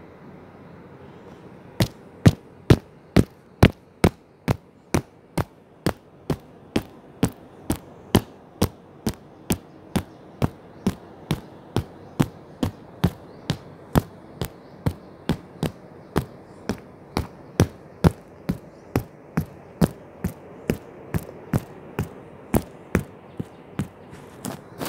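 A long, even series of sharp knocks, about two a second, starting about two seconds in, over a steady background hiss.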